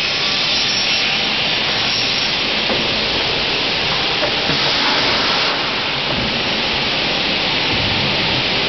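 Elumatec SBZ 610 CNC profile machining centre running a cutting program: a loud, steady hissing machining noise that brightens briefly around the middle.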